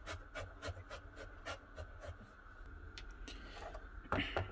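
Kitchen knife finely chopping carrot on a wooden cutting board: faint quick taps of the blade on the board, about three or four a second, thinning out after a couple of seconds, with a louder short sound near the end.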